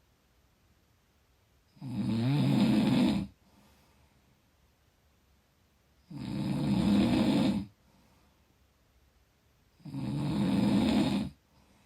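Snoring from someone asleep: three snores, each about a second and a half long and roughly four seconds apart, with quiet breathing in the gaps.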